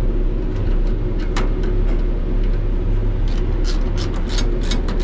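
Steady low machine hum, with sharp metallic clicks and clinks of nuts, bolts and a sheet-metal frame being handled. The clicks come a few at a time at first, then thick and fast over the last two seconds.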